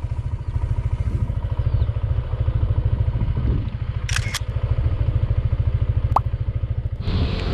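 Motorcycle engine idling with a steady, rapid low pulse, with two short clicks about four seconds in.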